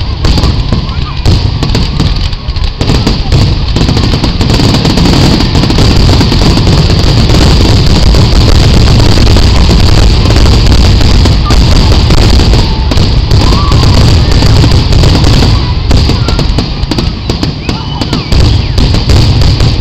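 Fireworks finale: a loud, almost unbroken barrage of aerial shell launches and bursts, the bangs running together. It thins out a little near the end.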